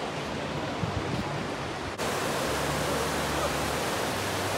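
A fast river rushing over rapids in a steady, even noise of whitewater. About two seconds in the sound changes abruptly from a fainter, duller steady rush to the louder, brighter rush of the rapids.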